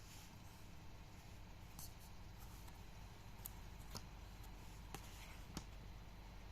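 Faint handling noises: a few small scattered clicks and light rustles over a low steady hum.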